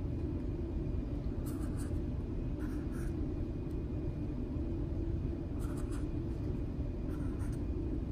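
Felt-tip marker scratching across paper in several short strokes, as curly brackets are drawn. A steady low hum runs underneath.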